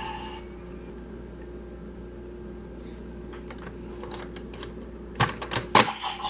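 Plastic clicks from a DX Kamen Rider transformation toy being handled: a few faint clicks, then a quick run of sharp, louder clicks about five seconds in, over a faint steady hum.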